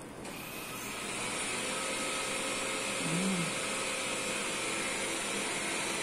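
A steady whirring electric motor starts up in the first second and keeps running, with a thin high whine on top. A short low hummed sound comes about three seconds in.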